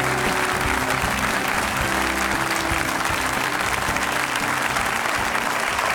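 Studio audience applauding, with instrumental theme music of held notes playing underneath.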